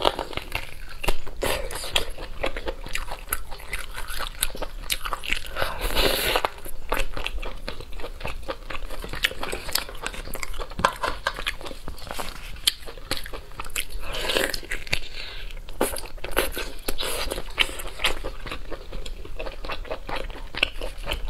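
Close-miked eating sounds: biting into and chewing chunks of spicy braised meat on the bone, tearing the meat off by hand, with many sharp crunches and clicks in quick succession.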